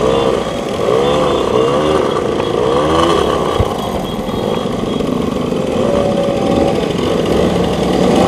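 Small two-stroke moped engines running in a group ride, heard from one of the mopeds. The revs rise and fall several times in the first few seconds, then settle into a steadier buzz.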